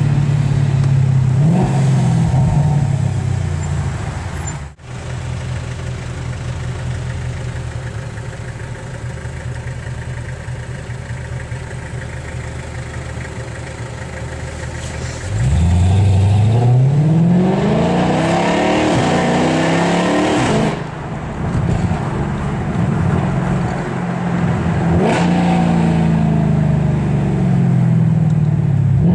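Mercedes-Benz C63 AMG Black Series' 6.2-litre V8 through an iPE aftermarket exhaust, heard from inside the cabin. It runs low and steady at first. About halfway in the engine note rises steeply and gets much louder under hard acceleration, then cuts off abruptly. Near the end the note falls again as the car slows.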